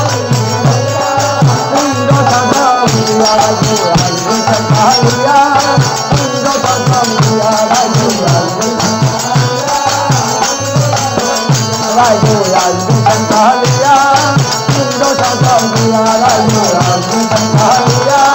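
Live Bengali devotional folk song: a drum beating a steady rhythm under jingling cymbals, with voices singing the melody.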